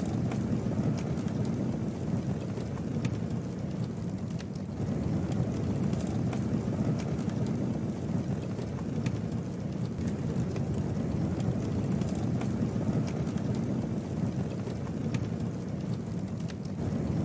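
Campfire burning: a steady low rumble of flame with scattered sharp crackles and pops from the wood.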